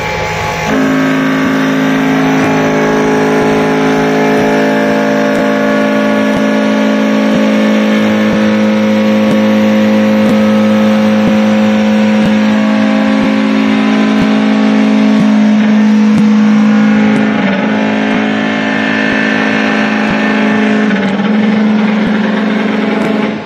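CNC wood lathe (KCWL4015FP) turning a wood blank under automatic cutting: a loud steady drone sets in about a second in, with scattered ticks throughout. The drone dips briefly near the end.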